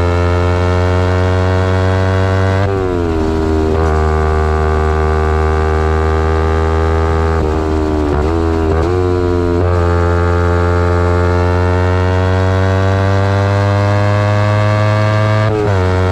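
A 2011 Kawasaki Ninja 250R's parallel-twin engine, breathing through a full Graves race exhaust, pulling under way. Its note climbs slowly in pitch and drops sharply at gear changes, once about three seconds in, a few times around eight to nine seconds, and again near the end.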